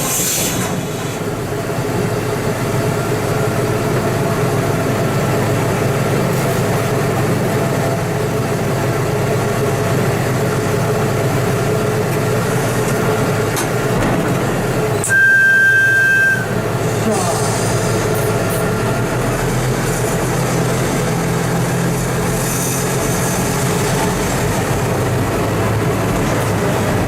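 TMC200 snow-removal motor car running along the track, its diesel engine working steadily. About halfway through it gives one horn blast of about a second and a half, a single steady high note.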